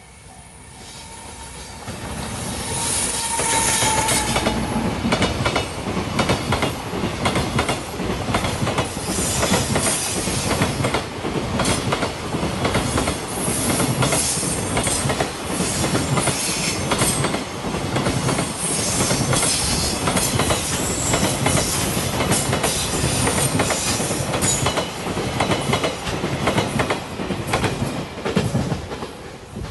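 A JR Freight container train hauled by an EF210 'Momotaro' electric locomotive passes close by. The train noise builds over the first few seconds, then holds as a loud, steady rumble with rapid clacking of the wagon wheels on the rails, and drops away at the very end as the last wagon passes.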